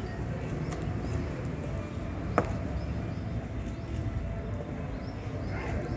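Open-air ambience: a steady low rumble with faint, scattered bird chirps, and one sharp knock a little before halfway.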